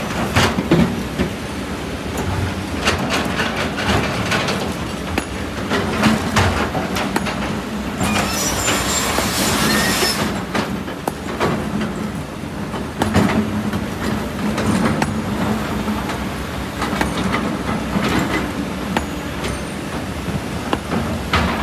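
Kobelco SK200 excavator's diesel engine running under load while it works, with repeated clanks and knocks of rock and metal. About eight seconds in, a rushing, hissing noise lasts around two seconds.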